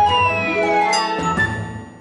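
Short logo jingle: bright synthesized music with a falling pitch glide in its first second, fading out near the end.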